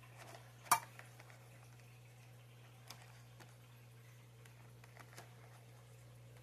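A small plastic fork clicking against moon cake packaging as a piece is lifted out: one sharp click about three quarters of a second in, then a few faint taps, over a faint steady hum.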